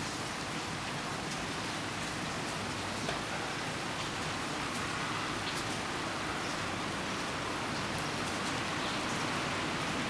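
Steady rainfall: an even hiss of rain with scattered individual drops ticking.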